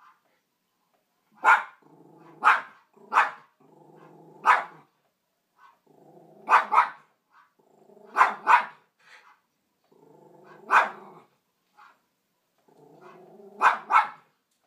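A poodle barking at a dog on the television: about eleven sharp barks, some in quick pairs, most preceded by a low growl lasting about a second.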